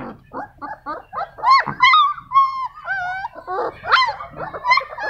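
Bully kutta puppies whining and yipping while they wrestle in play: a quick run of short, high whimpers that slide up and down in pitch.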